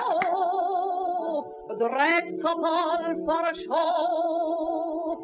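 A woman singing three long held notes with a wide vibrato, with short breaks between them, over a musical accompaniment.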